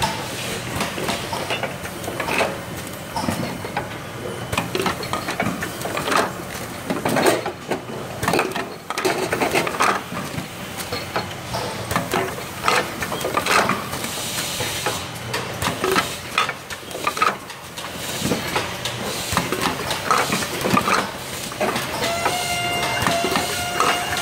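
Heat-transfer printing machine for silicone sealant cartridges running: irregular clicks and clacks of cartridges and machine parts over a steady mechanical noise. A steady whine comes in about 22 seconds in.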